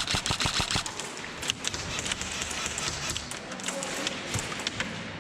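Airsoft gun firing a rapid burst of shots, about seven a second, which stops about a second in. Scattered single shots or BB impacts follow as clicks and taps.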